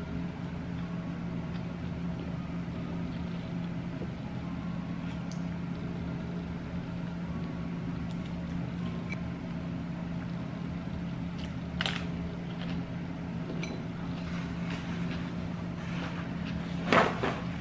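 A steady low hum throughout, with a few light clicks of wooden chopsticks against a ceramic noodle bowl, the clearest about two-thirds of the way in. Near the end comes a short, louder burst of rustling noise.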